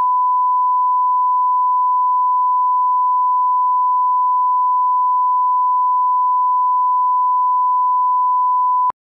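1 kHz reference tone of a bars-and-tone broadcast test signal: one steady, unchanging beep that cuts off suddenly near the end.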